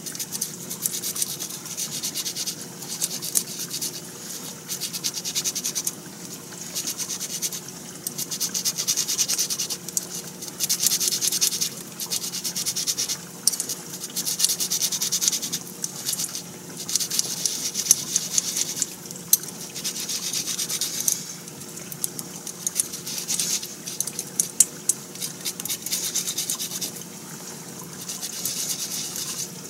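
Yuzu rind being grated: repeated rasping strokes of the peel against a grater, in short irregular runs with brief pauses.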